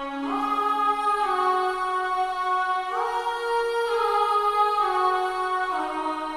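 Sampled choir 'aah' vocal pad holding chords, changing to a new chord about every second, each change sliding up or down into the new notes.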